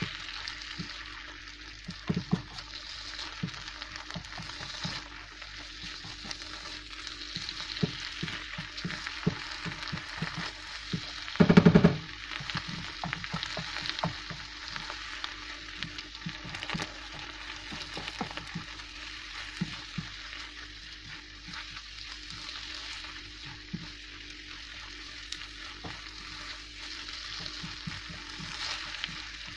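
Tomato and chilli sambal sizzling in a nonstick frying pan, stirred with a wooden spatula that clicks and scrapes against the pan. About eleven seconds in there is a brief loud low buzz.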